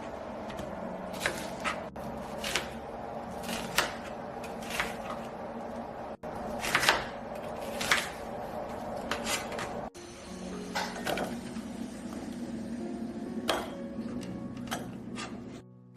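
Kitchen work sounds: a string of sharp clicks and clinks of utensils and dishes over a steady appliance hum.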